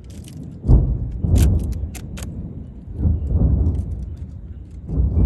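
Fireworks shells bursting: four deep booms, each dying away over about a second (two close together about a second in, one at about three seconds and one near the end), with a few sharp crackling pops between the first booms.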